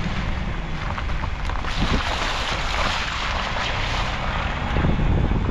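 Vehicle driving on a wet dirt road, heard from a microphone outside by the front wheel: wind buffeting the microphone over a low engine and road rumble. The tyres hiss and crunch through mud and gravel, the hiss growing louder for a couple of seconds in the middle, with a few small clicks of grit.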